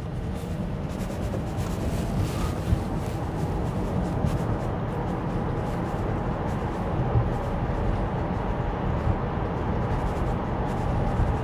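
Road and tyre noise inside the cabin of an electric Tesla Model Y while it drives, a steady low noise that grows a little in the first couple of seconds as the car picks up speed.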